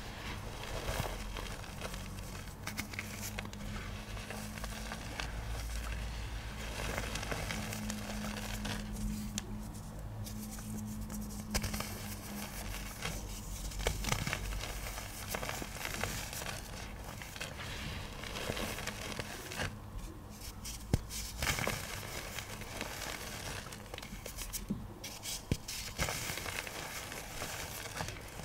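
Dry, powdery pigment pebbles crunching and crackling as they are crushed, a dense run of small irregular crackles with an occasional louder snap.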